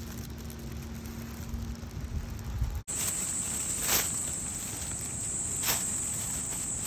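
A low rumble that cuts off abruptly about three seconds in, replaced by the steady high-pitched chirring of summer insects, with two brief crunches over it.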